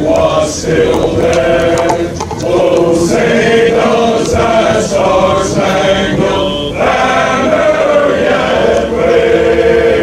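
Men's choir singing a cappella in close harmony, holding long chords.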